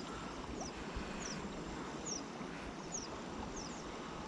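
A small bird calling with short, high, falling chirps, a little more than one a second, over a steady noise of wind and flowing river water.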